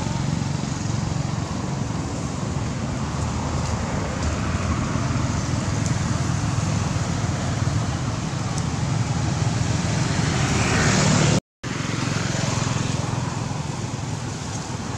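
Steady outdoor background noise with a low rumble, like distant road traffic. It drops out completely for a moment about eleven and a half seconds in.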